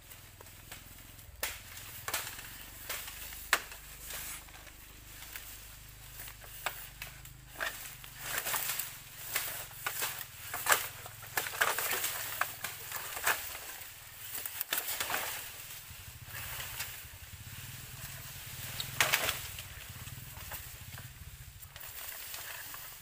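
Irregular rustling and crackling of dry bamboo and leaves being handled or trodden on, with sharp cracks every few seconds, the loudest about 11 and 19 seconds in.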